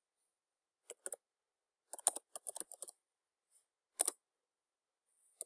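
Computer keyboard typing in short bursts: a couple of keystrokes about a second in, a quick run of keys around two seconds in, then a few more strokes near the end.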